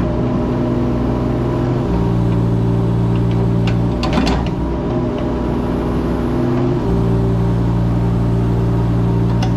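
Mini excavator engine running steadily, its tone changing twice, about two seconds in and about seven seconds in. A brief clatter comes about four seconds in.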